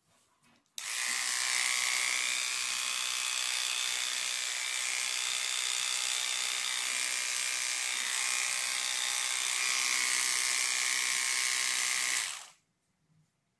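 Electric hair clippers switch on about a second in and run with a steady buzz as they shave a puppy's fur, then switch off near the end.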